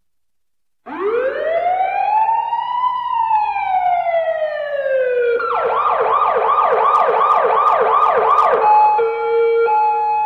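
Electronic police car siren. After a short silence it gives one wail, rising for about two seconds and falling more slowly over the next two or three. It then switches to a fast yelp of about three sweeps a second, and near the end to a two-tone hi-lo alternation.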